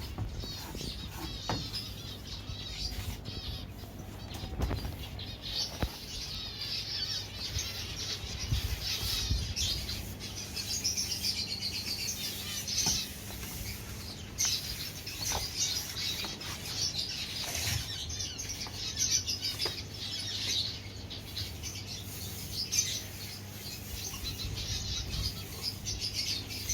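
A flock of small cage birds chirping continuously, with occasional short sharp knocks, over a low steady hum.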